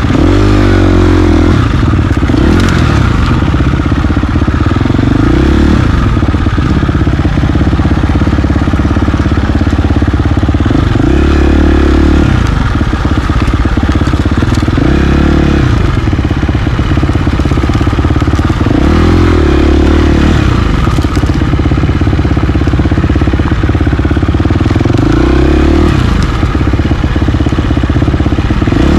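KTM 350 XC-F dirt bike's four-stroke single-cylinder engine running loud and close, its pitch rising and falling every few seconds as the throttle is opened and closed along the trail.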